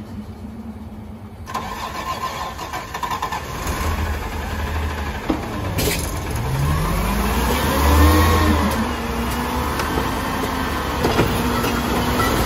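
Garbage truck's diesel engine running, revving up and back down about seven seconds in with a rising then falling whine. The sound changes abruptly twice early on, as at cuts between clips.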